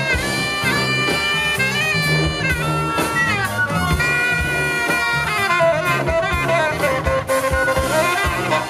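Live brass-band jazz in a New Orleans second-line style: a saxophone plays a melody with bends and long held notes over sousaphone, electric bass and hand percussion.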